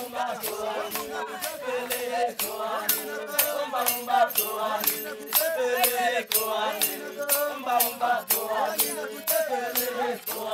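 Group of voices singing a chant over a rattle shaken in a steady beat, about two or three strokes a second, as dance music.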